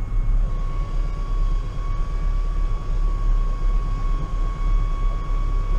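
Massey Ferguson 5440 tractor's four-cylinder diesel engine running steadily, heard from inside the cab, with a steady high whine over the low engine note.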